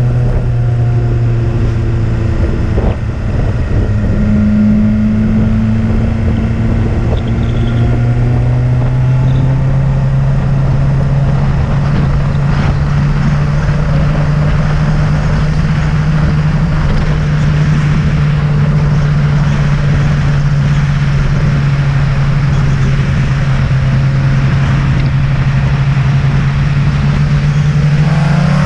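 Motorcycle engine pulling steadily on an uphill climb under constant wind rush, its note creeping slowly higher; near the end the revs rise quickly.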